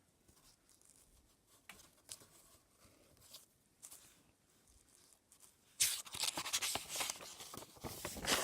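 Paper rustling and crinkling as a sketchbook page is handled and turned, starting about six seconds in after a few faint clicks.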